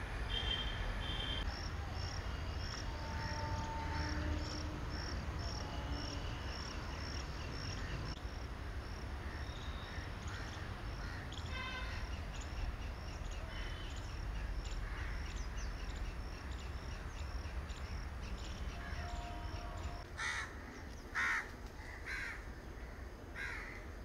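Crows cawing several times near the end, over a steady low background rumble. A high, regular chirping about twice a second runs through the first half.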